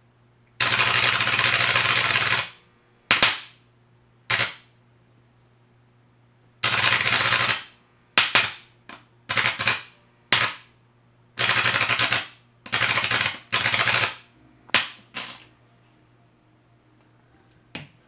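High-voltage arc drawn from a microwave oven transformer with an insulated probe, buzzing harshly like a "120 hertz machine gun". It strikes in about fifteen bursts, the longest about two seconds near the start and most of the rest under a second.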